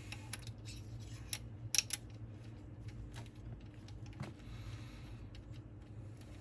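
Light metallic clicks and clinks as a refaced rocker arm is slid onto its rocker shaft on the cylinder head and handled under the dial indicator, with a few sharper clicks about a second and two seconds in. A steady low hum runs underneath.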